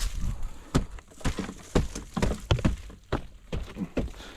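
Footsteps on hard ground: a series of sharp, irregular knocks about two a second.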